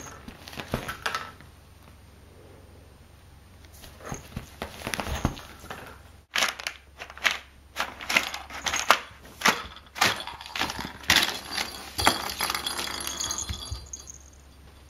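Brown paper bag crinkling and crackling as a kitten paws and shifts about inside it, a dense run of sharp crackles from about six seconds in until near the end, with fainter rustles before.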